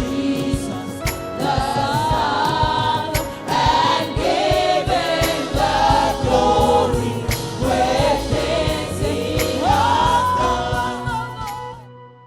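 Gospel choir singing praise with instrumental accompaniment and a steady beat. The music stops about twelve seconds in, leaving a faint held tone that dies away.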